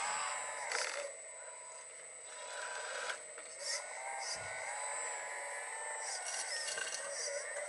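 1:14 scale RC hydraulic excavator (Volvo EC380 model) working, its electric hydraulic pump whining as the boom and arm move. Birds chirp alongside, with a couple of sharp clicks.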